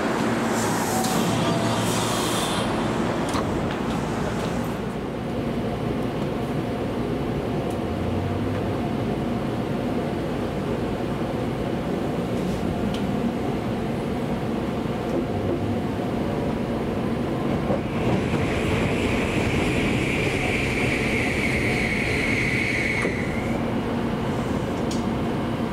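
Electric train running on rails: a steady rumble of wheels on track. A high squealing tone holds for about five seconds two-thirds of the way in.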